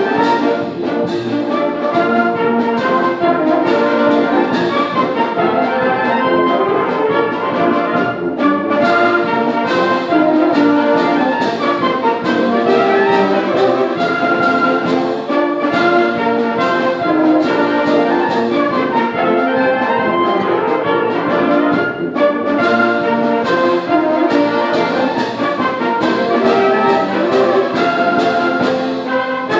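High school symphonic band playing a concert piece, with brass to the fore and frequent sharp accented strikes.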